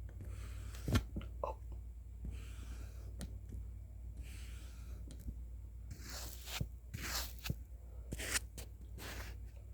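Close-miked ASMR prop and hand sounds: a sharp tap about a second in, then several short scratchy strokes from about six seconds on, over a low steady hum.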